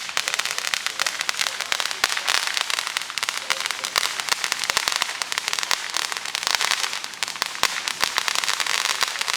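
Fireworks going off some way off: firecrackers crackling in a rapid, unbroken string of sharp pops, a few louder than the rest.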